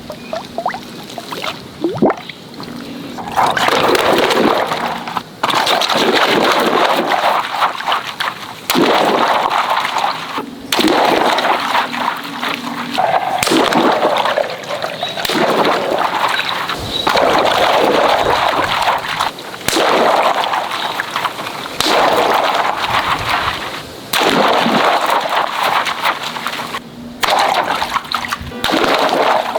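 Water rushing and splashing in a string of short, loud sections that cut off abruptly every two to three seconds.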